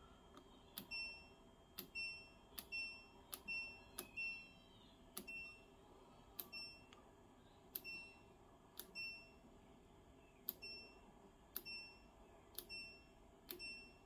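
LG F4V310SNEH washing machine's program selector dial being turned step by step: each step gives a sharp click followed by a short high-pitched beep from the control panel, about a dozen times at uneven intervals.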